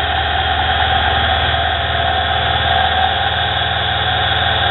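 Nano lathe running steadily, its sewing-machine motor driving the spindle through a ribbed V-belt, with the speed turned up one step. It is being run to check the belt tension.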